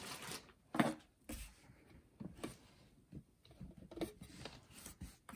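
Light handling noises from unboxing: scattered soft knocks and rustles of cardboard and plastic packaging as a hand moves around inside the box, with one louder knock about a second in.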